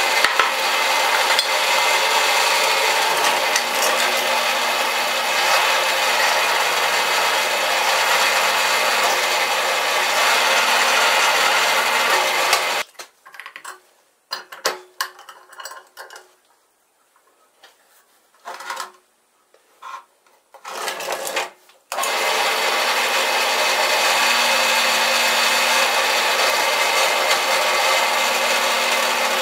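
Drill press motor running steadily, drilling a pilot hole in steel square tubing. About a third of the way in the running cuts off abruptly, leaving a stretch of scattered short knocks and clinks of the steel stock and vise being handled. About two-thirds in, the steady running starts again.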